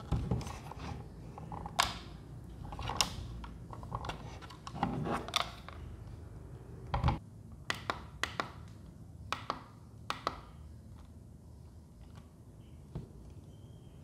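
Hands handling the hard plastic parts of the mini spray fan and its packaging: a string of sharp clicks and knocks, busiest in the first ten seconds and only one more near the end, over a faint steady low hum.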